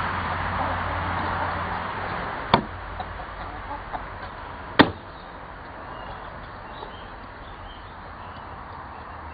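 Chickens at a feeder: two sharp pecks or taps, about two seconds apart, with a few lighter ticks between them, and faint clucking.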